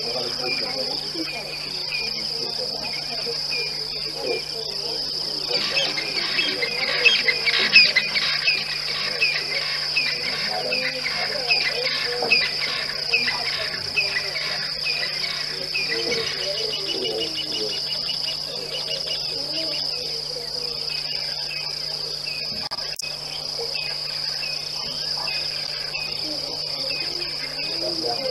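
Steady high-pitched trilling of an insect chorus at dusk. Over it, a bird calls in a fast run of short falling chirps for about ten seconds in the middle.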